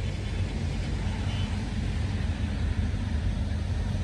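Electrofishing booster unit (an '8F' shocking machine) running with a steady low drone while its electrode poles are in the water.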